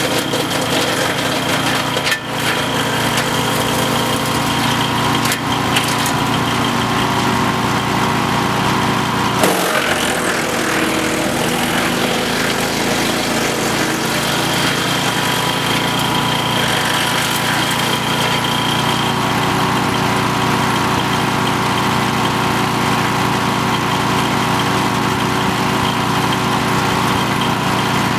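Petrol wood chipper's Briggs & Stratton engine running steadily, its tone shifting about nine and a half seconds in.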